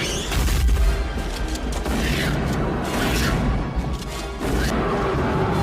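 Action-film soundtrack: dramatic music over deep rumbling and several crashing impacts, with a held tone coming in near the end.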